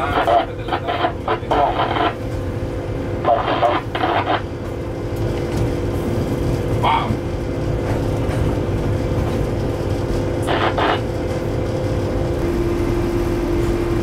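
Cab noise of a Eurosprinter class 120 electric locomotive rolling on the line: a steady low rumble with a steady electric hum from the traction equipment. One of the hum's two tones drops away near the end, leaving the lower one stronger. Short snatches of muffled voice, like radio chatter, cut in four times.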